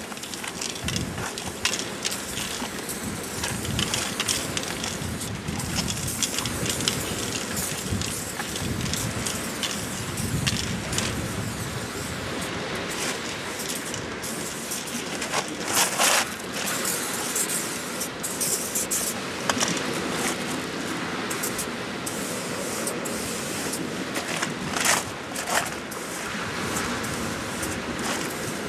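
Aerosol spray paint can hissing in repeated bursts of varying length as paint is sprayed onto a concrete wall, over a steady background noise.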